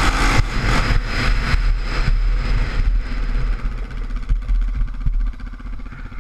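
Yamaha Raptor 660 quad's single-cylinder four-stroke engine running on the move, then easing off to a quieter, steadier note about halfway through.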